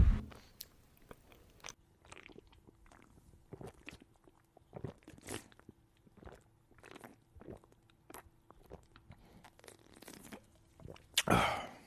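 Kitchen knife slicing cooked pig intestines and blood sausage on a thick wooden chopping block: soft, irregular crunches and knocks as the blade cuts through and meets the wood, about two a second. One louder, longer noise comes near the end.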